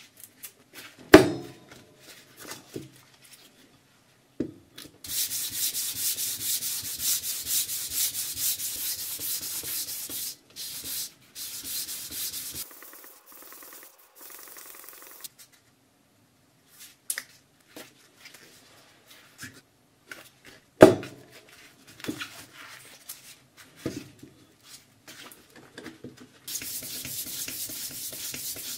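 A homemade knife blade of hardened underwear fabric is rubbed rapidly back and forth on fine #2000 wet sandpaper held flat in a sharpening holder, in two runs of fast, even strokes. Between them come quieter handling scrapes and ticks, and two loud knocks, one about a second in and one about twenty seconds in.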